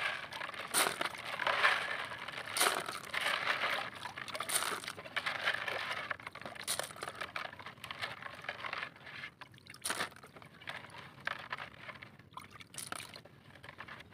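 Water sloshing in a plastic bucket as a hand washes freshly gathered sea snail shells, with scattered sharp clicks of the shells knocking together. The splashing is busiest in the first nine seconds or so and lighter after.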